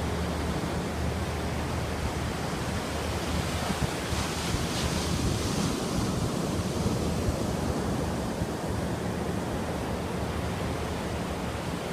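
Ocean surf: a steady wash of waves, swelling louder for a few seconds near the middle.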